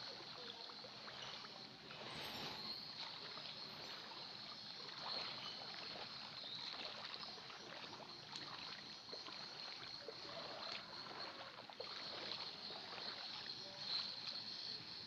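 Shallow floodwater sloshing and splashing faintly, with small irregular splashes and a steady high-pitched whine in the background.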